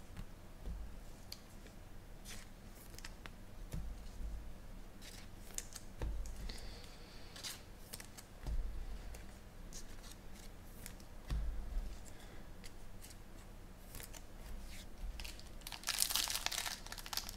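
Light handling noises with a few soft knocks and faint clicks, then near the end the foil wrapper of a Bowman High Tek baseball card pack crinkling loudly as it is torn open.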